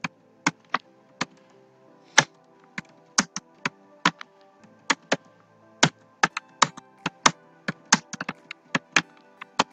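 Computer keyboard keys clicking irregularly as shell commands are typed, in short runs of a few keystrokes with brief pauses between them.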